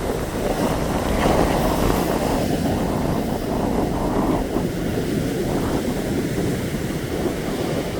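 Sea surf washing onto the shore, with wind buffeting the microphone; the wash swells about a second in and again around four seconds.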